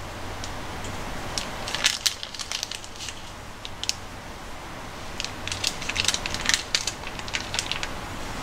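Small plastic packet of dried bonito flakes crinkling and crackling in the hand as the flakes are shaken out, in two spells of quick crackles. A faint steady low hum lies underneath.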